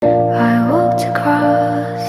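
Background music: a slow melody with sliding notes over a held low note.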